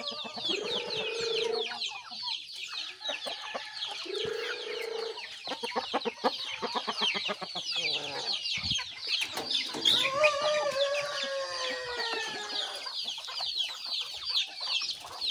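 A flock of chickens: many chicks peep in rapid, high, falling cheeps throughout, while adult birds give a few longer, lower calls, one of them rising and falling about ten seconds in.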